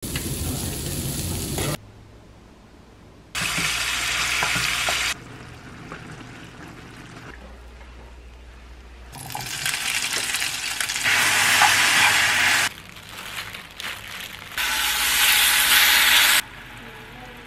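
Meat sizzling on a hot grill pan and in a cast-iron skillet, heard in several short bursts that start and stop abruptly, with quieter stretches between.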